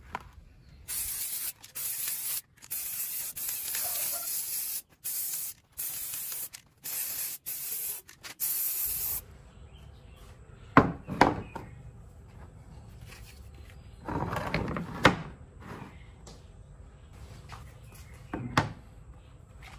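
Aerosol spray-paint can spraying in a series of short hissing bursts over about eight seconds as a plastic fan housing is painted. After that, a few sharp clicks and knocks of the plastic fan parts being handled and set down on a wooden board.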